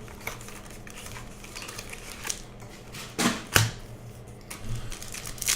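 Trading cards and card packs being handled: soft rustling with a few sharp clicks, the clearest two a little past the middle.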